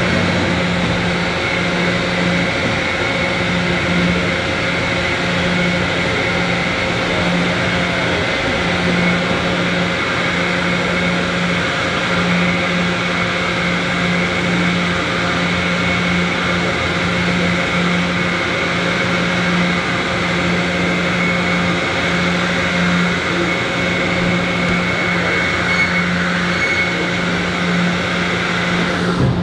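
Makino MAG3.EX five-axis horizontal machining centre milling with its 174 HP spindle under coolant: a loud, steady machining drone with a strong low hum that wavers slightly and a fainter higher whine above it.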